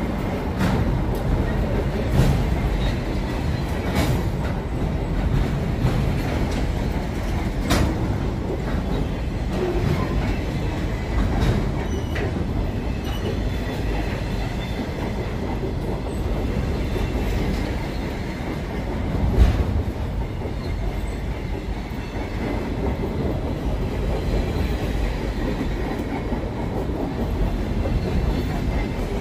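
Container freight wagons rolling past close by: a steady low rumble with scattered sharp clacks and knocks, the loudest about two-thirds of the way through.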